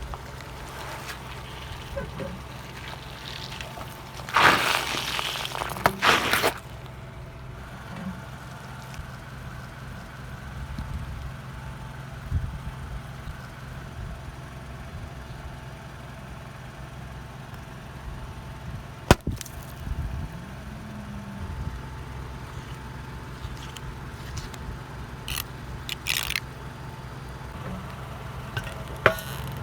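A car's engine running slowly under crunching and cracking as objects are crushed under its tyres. The loudest crunching comes about four to six seconds in, with a single sharp snap near the middle and a few short cracks near the end.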